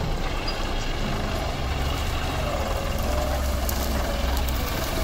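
Diesel engine of a tractor-mounted combine harvester running steadily as the machine drives over rough, stubbly ground, with a constant low hum.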